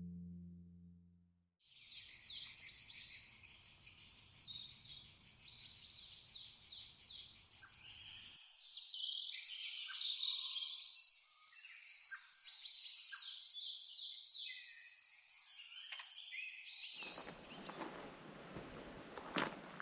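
Woodland ambience: a high chirp repeated evenly about three times a second, with other bird calls over it. The intro's guitar music fades out at the start, and near the end the sound cuts to a quieter, steady rustle.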